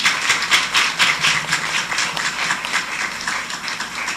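Audience applauding: a round of handclaps that thins slightly toward the end.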